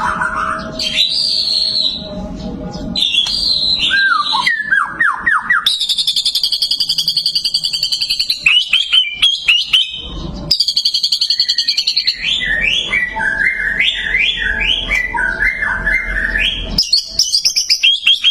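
White-rumped shama (murai batu) singing a long, varied song: clear whistled phrases, a fast rattling trill, quick downward-sweeping notes and a string of stepped, repeated notes.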